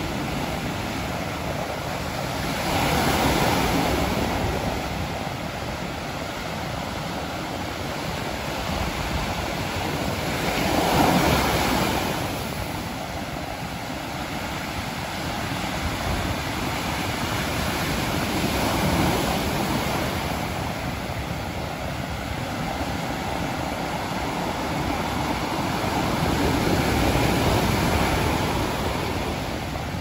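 Rough sea surf: waves breaking and washing up a sandy beach in a continuous rush, swelling louder four times, about every eight seconds, as each big wave breaks.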